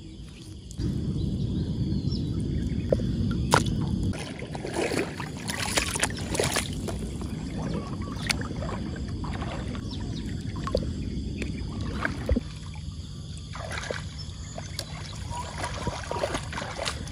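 Shallow floodwater sloshing and splashing as hands reach in among the grass to pick up snails and legs wade through it. A low rumble is loudest over the first few seconds.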